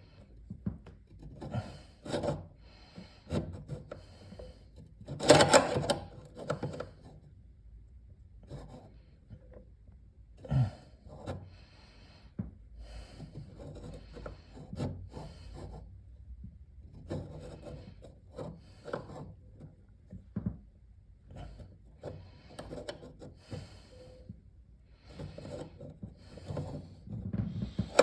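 Flat-head screwdriver scraping and prying against the metal retaining tab on a refrigerator's roller wheel bracket, bending it back into place: irregular scrapes, rubs and knocks, with a louder, longer scrape about five seconds in.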